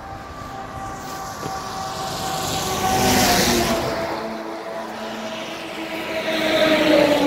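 Motor vehicles passing on the road. One swells up and goes by about three seconds in, its engine note dropping as it passes, and another comes up loudly near the end.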